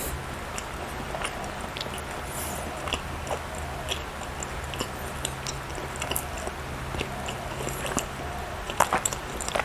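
Close-miked chewing of soft cake or bread: wet mouth smacks and small clicks scattered throughout, with a few louder smacks near the end, over a faint steady hum.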